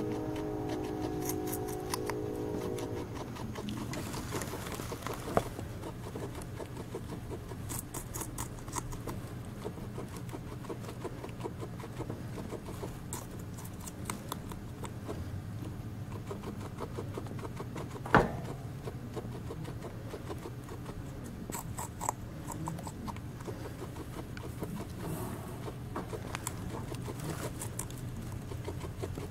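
A guinea pig biting and chewing melon rind, lettuce and celery: bursts of rapid small crunching clicks. A single sharp knock stands out about eighteen seconds in.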